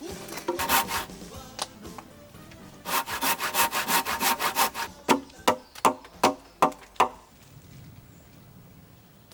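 Hand saw cutting through wood: a fast run of strokes, then slower, separate strokes, about two or three a second, that stop about seven seconds in.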